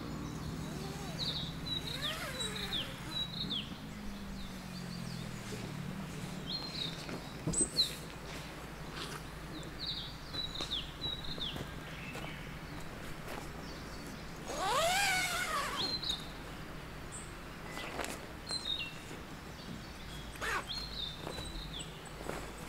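Wild birdsong in woodland: a small bird repeating short high chirping phrases throughout, with one louder, harsher call that rises then falls in pitch about fifteen seconds in. A low hum sits under the first few seconds.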